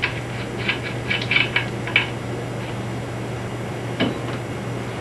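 Light metallic clicks and scrapes as a faucet supply-line coupling nut is spun off its threaded shank by hand. They come in a cluster in the first two seconds and once more about four seconds in, over a steady low hum.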